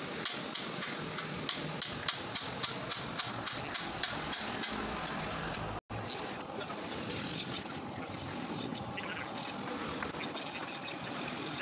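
Light, irregular clicks of a car side-mirror motor part being turned and worked by hand, over a steady background of street traffic noise. The clicks stop about halfway through.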